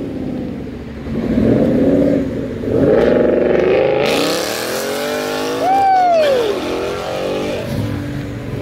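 Ford Mustang GT's 5.0-litre V8 exhaust revving as the car pulls away and accelerates hard, its pitch climbing over the first few seconds. A short falling glide sounds about six seconds in.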